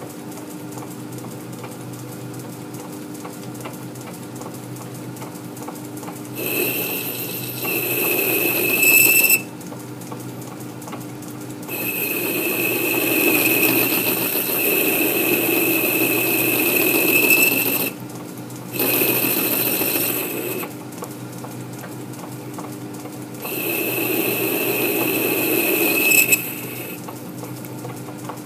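South Bend lathe running steadily while a carbide insert tool takes light cuts on the end of a steel arbor. The tool bites three times for a few seconds each, and each cut brings a high-pitched squeal over the lathe's hum.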